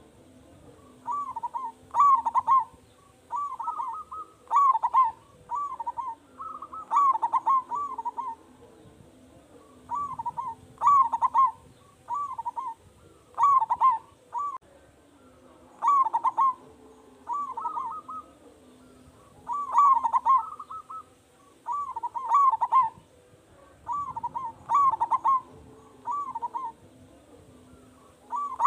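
Zebra dove (perkutut) cooing its song again and again: runs of short, rolling coo notes, a new phrase every two to three seconds.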